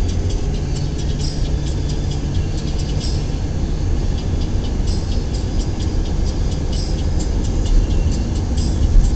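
Car driving along a street, heard from inside the cabin: a steady low rumble of engine and road noise, with light repeated ticks above it.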